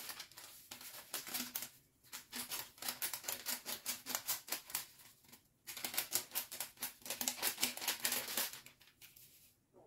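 A foil sachet of powdered tamarind soup mix crinkling in rapid ticks as it is shaken and tapped to pour the powder out. The shaking comes in three or four spells with brief pauses and stops shortly before the end.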